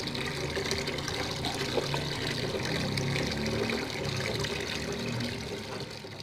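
Tap water running steadily into a basin of water in a steel sink, splashing as chopped potatoes are rinsed by hand.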